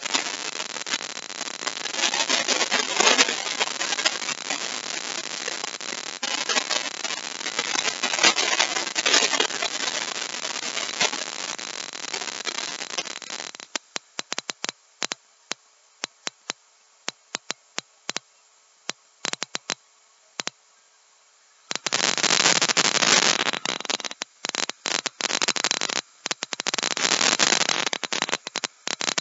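Hand chisel cutting a deep mortise in wood: dense, rapid scraping of steel against wood for about the first half, then a stretch of scattered sharp taps, then the dense scraping again for the last third.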